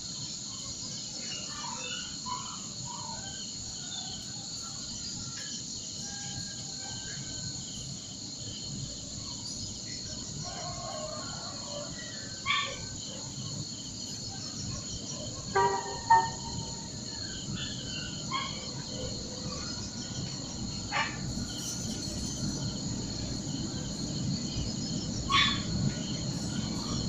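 Wild birds chirping and calling, with a few louder sharp calls in the middle and near the end, over a steady high-pitched drone of insects such as crickets or cicadas. A low background rumble grows toward the end.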